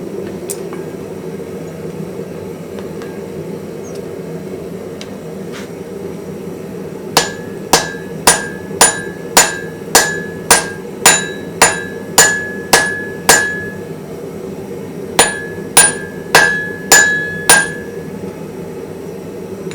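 Hammer striking steel on an anvil: about a dozen evenly paced blows, roughly two a second, each with a bright ring, then a short pause and five more.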